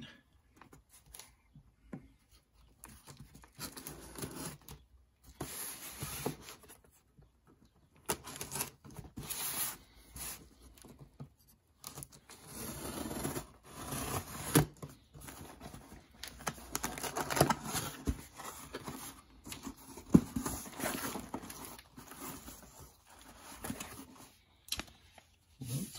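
Folding knife slicing packing tape on a cardboard shipping box, then tape tearing and cardboard flaps rustling as the box is opened and unpacked, with a few sharp knocks.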